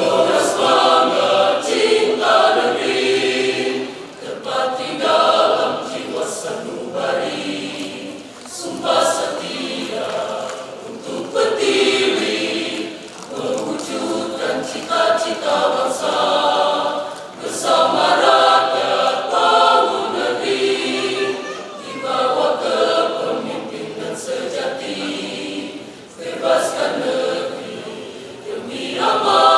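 Mixed church choir of men and women singing together in parts, in phrases that swell and fall back with short breaks between them.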